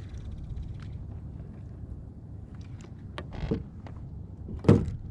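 A few scattered clicks and knocks over a steady low rumble, with one sharp thump near the end.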